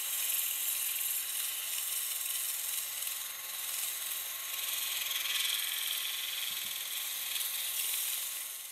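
Wooden pump handle spinning in a power drill while sandpaper is held against it: a steady hiss of sanding over the whir of the drill's motor.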